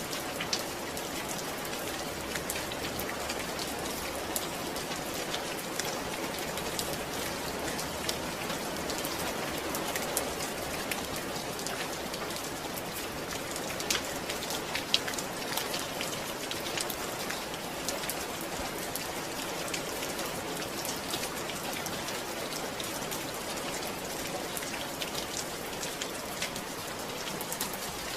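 Steady rain falling, an even hiss of rain with scattered sharper drop hits throughout.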